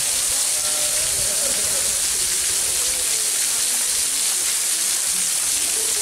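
Waterfall's water and spray falling in a steady, even hiss.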